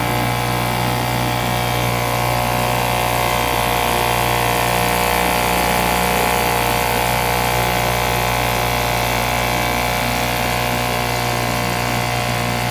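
British Seagull two-stroke outboard motor running steadily at full throttle.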